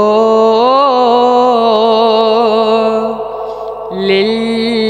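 A male voice singing a naat, drawing out a long held syllable with a wavering, ornamented melody over a steady low drone. About four seconds in, the melody moves onto a new note.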